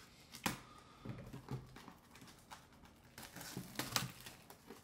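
Plastic shrink wrap on a cardboard box crinkling and rustling under the fingers as it is picked at, with scattered light scratches and clicks, busiest near the end.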